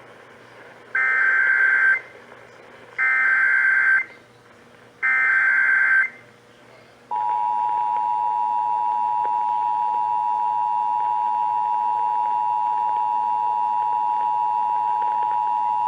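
Emergency Alert System activation: three one-second bursts of SAME digital header data, about a second apart, then the EAS two-tone attention signal starting about seven seconds in and held steady. It heralds a severe thunderstorm warning.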